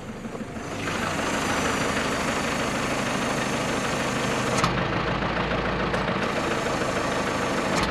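1985 Mazda T3500 truck engine idling in neutral with the exhaust brake applied by the auxiliary engine heater switch, building back pressure so the engine warms up faster. A steady idle heard from beside the truck, growing louder about a second in, with a brief change in its sound between about five and six seconds in.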